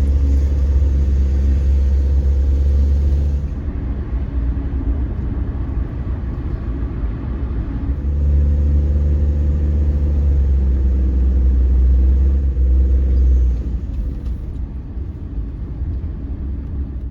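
A car driving: a steady low engine and road rumble, louder over the first few seconds and again from about eight to thirteen seconds in.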